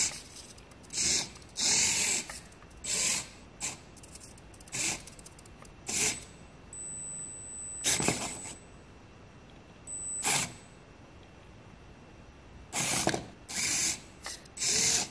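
Micro 4WD RC car's tiny geared drive motor whirring in about a dozen short bursts as the throttle is blipped. There is a longer, steadier run about seven to eight seconds in, while the car climbs a foam block.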